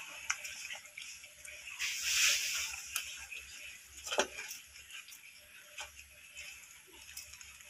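Belgian Malinois puppies lapping and slurping soupy food from a stainless steel bowl: soft, irregular wet clicks and smacks, with a brief louder slurp about two seconds in.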